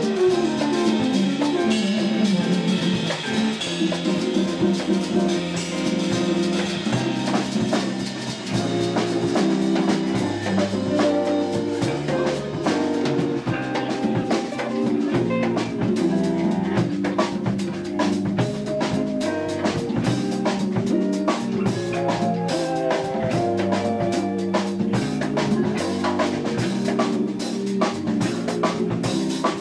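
A jazz band with drum kit, congas and percussion playing an instrumental number, the drums busy throughout over a moving bass line. A quick falling run of notes sounds at the very start.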